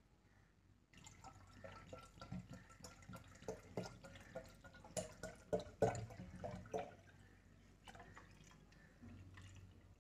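Water poured from a bottle into a glass fish bowl already holding water, splashing and glugging in irregular spurts for about six seconds, then a few faint trickles near the end.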